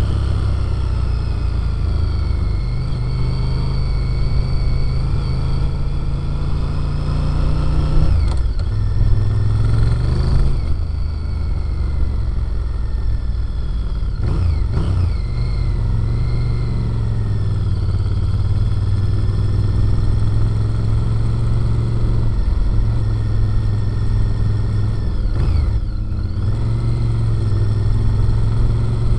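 Sport motorcycle engine and exhaust heard up close beside the silencer while riding, the note rising and falling with the throttle and dipping briefly about four times.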